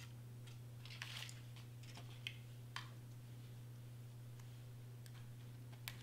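Faint hand handling of a cardstock piece: a few soft rustles and short clicks, one cluster about a second in and single clicks near two and three seconds and near the end, over a steady low hum.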